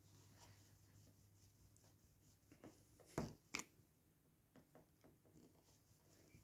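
Mostly near silence with faint scratching and a few small clicks of a bradawl picking at a plastic model part, the two clearest clicks a little after three seconds in.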